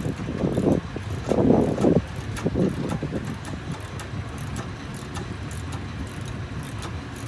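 Light metallic clicks from a motorcycle scissor jack being worked with its long handle, over a low engine rumble. The rumble swells three times in the first couple of seconds, then settles to a steady drone.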